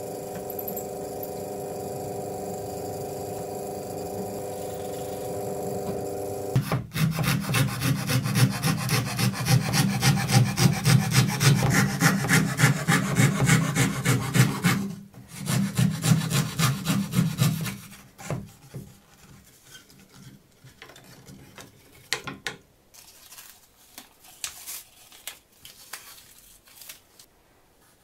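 A drill press motor running with a steady hum, then, about seven seconds in, a Proxxon scroll saw cutting plywood: a loud, fast, even buzz of blade strokes with a short break, stopping about eighteen seconds in. Quieter, scattered scraping and tapping follows.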